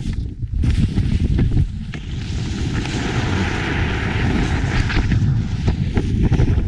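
Wind buffeting the microphone of a moving camera on a snowboard run, with the hiss of board edges sliding and carving over packed snow, strongest through the middle. The rumble dips briefly just after the start.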